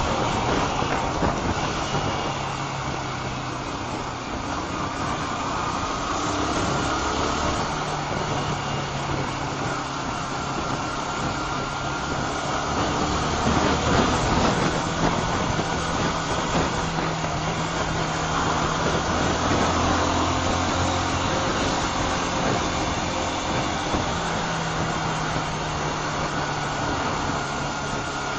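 Honda CBR125's single-cylinder engine running while the motorcycle is ridden, under heavy wind noise on the microphone. The engine note holds steady, then shifts to a new pitch several times.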